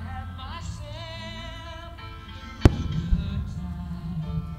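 Music with a wavering melody line, and one sharp firework shell burst a little over halfway through, followed about half a second later by a smaller low thump.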